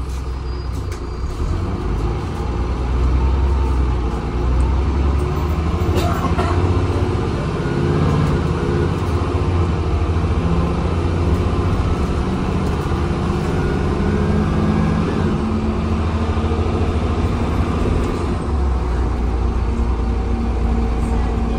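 Transbus Trident double-decker bus engine and drivetrain running under way, heard from inside the saloon: a steady low drone whose pitch rises a couple of seconds in and again around two thirds of the way through, then shifts near the end. One sharp knock about six seconds in.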